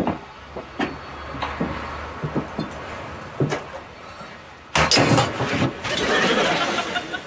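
Drama soundtrack of small knocks and clicks as objects are handled, then a louder clatter of sharp knocks about five seconds in, followed by a second of rustling noise.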